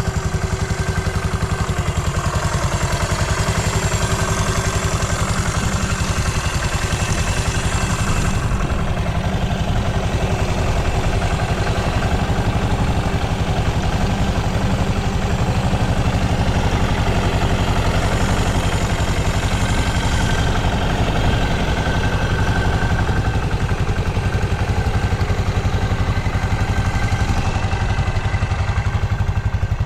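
Yamaha SR400's air-cooled single-cylinder four-stroke engine running steadily at idle. It runs quietly, with no abnormal noises, a sign of a healthy engine on its start-up check.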